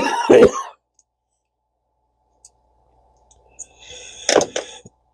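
A congested cough right at the start, then quiet, then small sharp clicks near the end as the Shimano Syncopate spinning reel is handled and taken apart.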